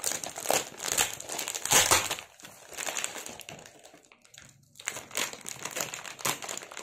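Clear plastic packaging crinkling and rustling in irregular bursts as hands pull it about and cut it open with scissors.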